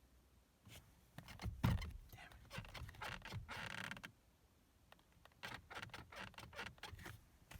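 Irregular clicks, creaks and scrapes of parts being handled, in two spells, with no horn sounding.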